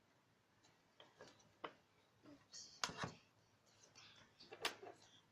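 Faint clinks and knocks of kitchen utensils on a serving tray, with a short scrape near the middle and a few louder knocks about three seconds in and again near the end.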